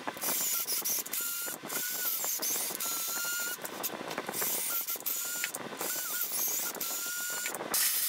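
Cordless drill boring 5 mm tapping holes for M6 into the cast-iron base of a mini mill column. It runs in several short stretches with brief breaks between them, its motor whining faintly over the cutting noise.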